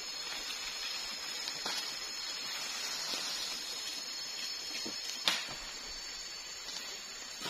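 Steady high-pitched drone of forest insects, with a few light crackles and one sharp snap about five seconds in.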